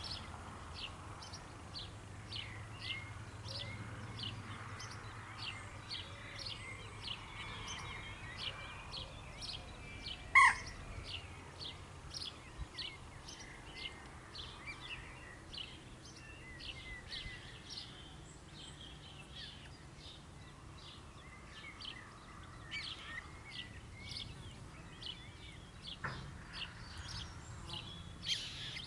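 Wild birds calling around a pond: a steady stream of short, high chirps, two or three a second, with one much louder single call about ten seconds in.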